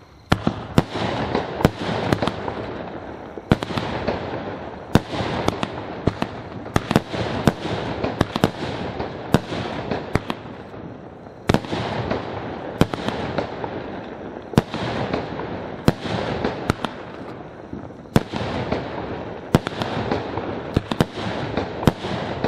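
'Matrix' 16-shot, 20 mm firework battery (cake) firing: a sharp report about every second over a continuous hiss, shot after shot throughout.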